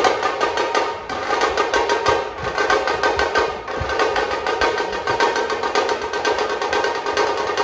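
Dhol-tasha ensemble drumming: a fast, even run of tasha stick strokes with deeper dhol beats under it.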